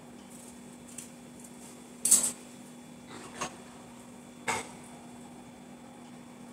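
Kitchen items being handled: a few sharp knocks and clinks, the loudest about two seconds in, then two lighter ones.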